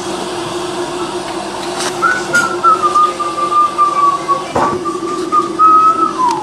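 A single high whistling tone held for about four seconds, slightly wavering and slowly falling, then dropping in pitch at its end, over a steady low hum.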